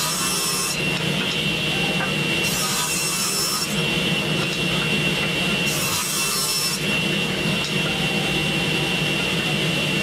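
Table saw running steadily with a constant blade whine while it rips strips from a dark wenge board. The sharper hiss of the blade in the wood comes in three times, each for about a second.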